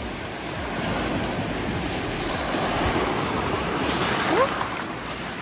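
Small waves breaking and washing up a pebble beach, swelling to a peak about four seconds in and then easing, with a brief rising squeak near the end.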